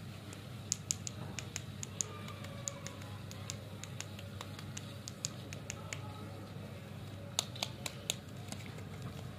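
Sharp clicks and crackles of fingers handling paper lollipop wrappers, an irregular scatter of ticks with a louder cluster near the end as the black wrapper is gripped at its twisted top. A low steady hum runs underneath.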